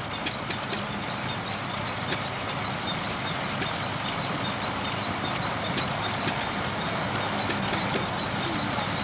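Threshing machine running steadily at work, its drum and shakers giving an even mechanical clatter with a light, regular ticking.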